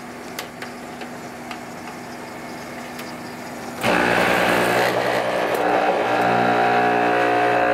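An old dehumidifier hums steadily. About four seconds in, its jiggler (vibrating solenoid) condensate pump kicks on with a sudden loud, steady buzz as it starts pumping out the collected water.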